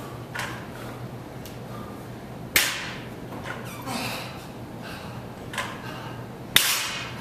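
Barbell loaded with bumper plates dropped to the floor after a snatch, twice, about four seconds apart, each a sharp bang that dies away quickly, with heavy breathing between.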